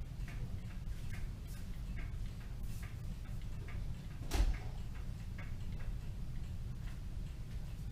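Freshly repaired Kienzle Vienna regulator clock movement running on its first test, ticking lightly and evenly over a steady low hum. There is one sharper knock about four seconds in.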